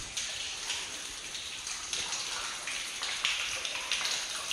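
Water falling and splashing in a cave shaft, a steady patter like rain.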